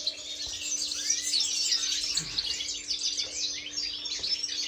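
European goldfinches singing: a dense, unbroken stream of fast twittering chirps and trills. A faint steady hum runs underneath.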